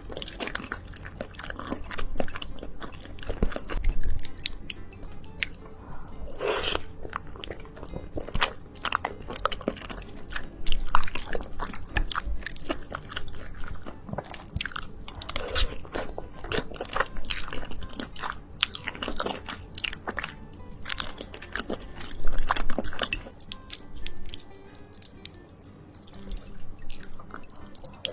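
Close-miked ASMR eating of creamy, cheesy pasta: irregular chewing and biting, with wet mouth clicks and smacks.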